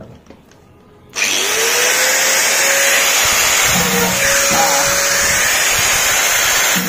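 Electric angle grinder switched on about a second in, its whine rising quickly to speed and then running steadily. Its cutting disc grinds into a 9-volt battery held in pliers, and the pitch dips briefly when the disc bites, around the middle and near the end.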